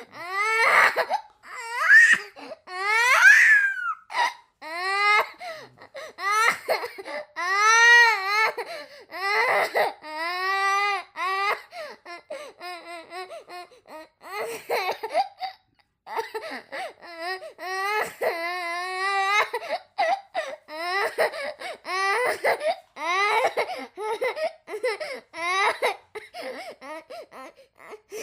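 A young child crying: repeated high-pitched wails that rise and fall in pitch, broken by runs of short, choppy cries.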